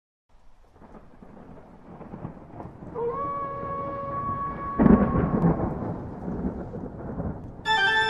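Thunderstorm sound effect: rain and rumbling fade in, with a loud thunderclap about five seconds in. A held musical tone sounds from about three seconds in, and a sustained organ chord enters just before the end.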